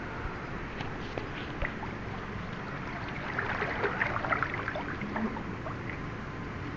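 Pool water splashing and lapping as a person moves through it, with a cluster of small, quick splashes in the middle, over a steady background hiss.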